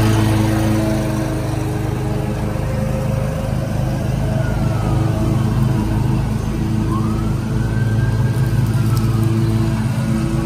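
Ferris Z1 36-inch stand-on mower's engine running steadily at mowing throttle as the mower drives off across the lawn, a little quieter after the first couple of seconds.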